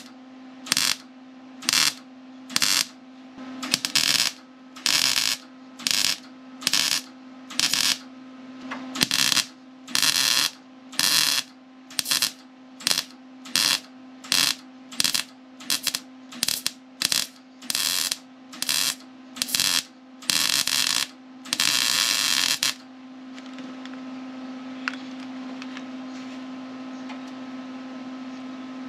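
MIG welder stitch-welding a car's inner fender rail: short bursts of arc crackle, a little more than one a second, ending with a longer burst a little after 22 seconds. After that the arc stays off and only a steady hum remains.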